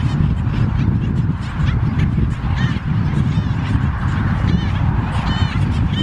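Black skimmers calling with short, nasal, honking barks, some in quick runs of several, over a steady low rumble.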